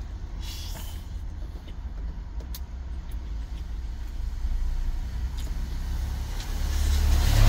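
Low steady rumble of a truck's engine heard from inside the cab, swelling louder near the end, with a few faint clicks from eating.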